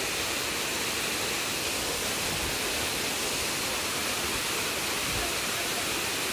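Waterfall cascading over rocks into a shallow rocky stream: a steady, even rush of falling and churning water.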